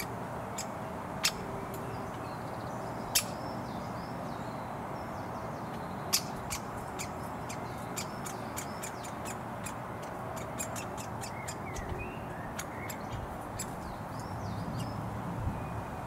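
Woodpecker fledgling and parent at the nest hole during a feeding: a run of sharp clicks and short chirps, thickest at about three a second between six and eleven seconds in, over a steady hum of road traffic.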